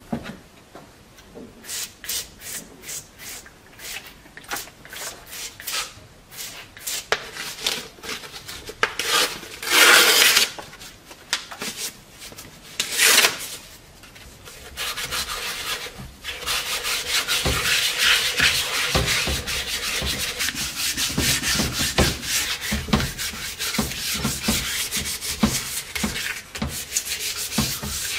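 Hand sanding of the painted steel shell of a Romanian M39 helmet with abrasive paper, rubbed back and forth. The strokes start out slow and separate, with two longer, louder rubs near the middle, then turn into fast, almost continuous scrubbing through the second half.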